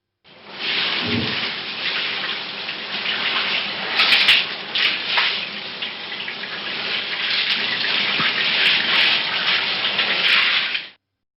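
Shower running: water spraying steadily, with a brief low thud about a second in. It cuts off abruptly near the end.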